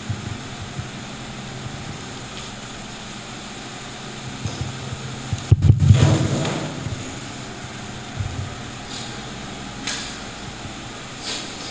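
Steady background hum of the room, broken about halfway by a loud thump followed by a second or so of rustling, with a few faint knocks later on.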